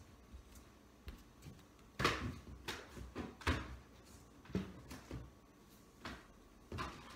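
Plastic bottles and other items being packed into a cardboard box: a series of knocks and thuds with some rustling, starting about two seconds in and coming every half second to a second.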